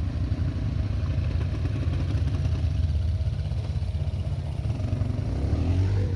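ATV (quad bike) engine running steadily, a rapid low pulsing exhaust note with some rattle.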